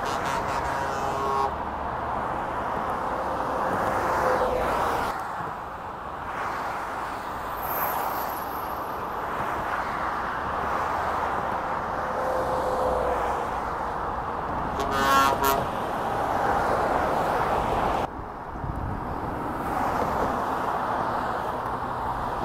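Lorries and cars passing on a dual carriageway, a steady rush of tyre and engine noise. A vehicle horn sounds briefly at the start and again, louder, about fifteen seconds in.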